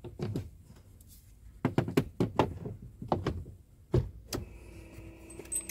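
Plastic interior door trim panel of a truck being pushed and tapped into place on the door: a series of knocks and clip snaps, the loudest about four seconds in. A faint steady hum comes in near the end.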